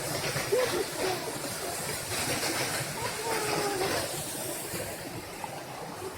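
Steady rushing hiss of a waterfall, with faint voices.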